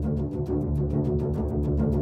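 Background music: sustained low notes under a quick, steady ticking beat.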